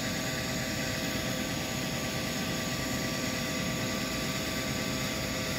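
Electric fan running steadily, forcing air into a cinderblock charcoal furnace: an even rush of air through the burning charcoal with a faint steady motor whine.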